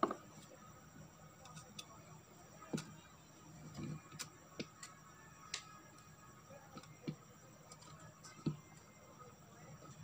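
Faint, irregular clicks and taps, about a dozen, spaced unevenly over low steady background noise.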